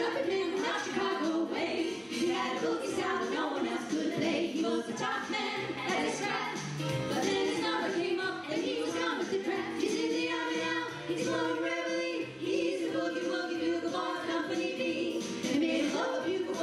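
A women's vocal group singing a song together in harmony.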